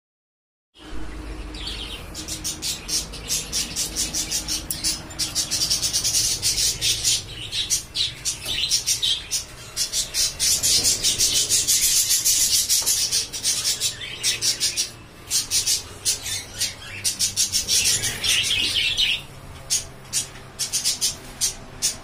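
A flock of budgerigars chattering: dense, rapid, high-pitched chirps from many birds at once. They start about a second in and grow sparser over the last few seconds.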